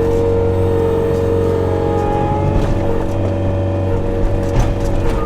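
Tracked loader's engine running steadily, with a few short clanks near the end.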